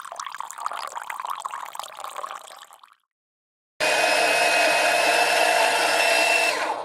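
Electric fluid transfer pump, powered from a 12-volt jump-starter pack, drawing transmission fluid out of a pitcher through a hose with an uneven gurgling and slurping. After a short cut, it runs with a loud, steady whine for about three seconds and stops near the end.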